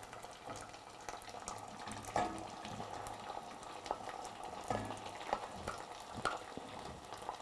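Wooden spoon scraping cooked potato off a plate into a stainless steel saucepan, with a few light knocks and scrapes, the sharpest about two seconds in, over a faint steady hiss from the pan.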